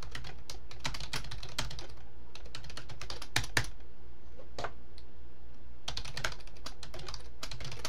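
Typing on a computer keyboard: quick runs of key clicks that thin out for about two seconds midway, then pick up again, over a faint steady low hum.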